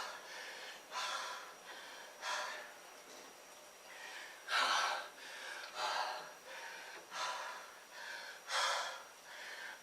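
A man's heavy breathing after a set of push-ups: loud, rough breaths about once a second, with a short lull a few seconds in.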